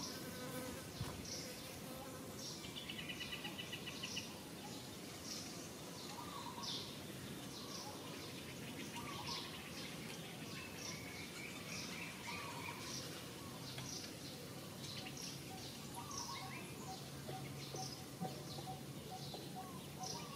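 Birds and insects calling: short high chirps repeating about once a second, with a brief rapid trill about three seconds in.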